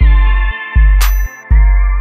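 Background music: deep bass notes on a steady beat under sustained synth chords, with one sharp hit about a second in.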